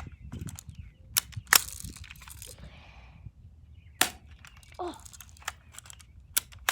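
Sharp clicks and snaps from a Game Face M311 airsoft gun being cocked and shot, several in all, the loudest about one and a half seconds in.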